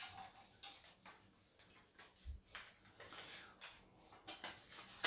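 Faint handling sounds: scattered light rustles and small clicks of paper name slips being picked up and unfolded at a desk, with one soft low thump a little over two seconds in.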